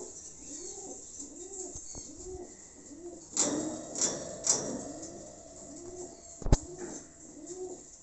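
American fantail pigeon cooing in a steady repeated series, about two coos a second. A few brief scuffs come about three to four and a half seconds in, and one sharp knock comes near the end.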